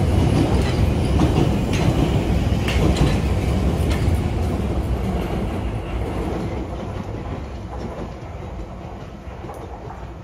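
London Underground Piccadilly Line 1973 Tube Stock train passing through a station on the fast section without stopping. Its wheels clatter over rail joints early on, then the rumble fades steadily as it pulls away.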